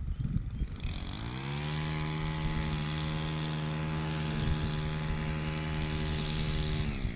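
A motor spins up about a second in, runs at one steady pitch for about five seconds, then winds down near the end.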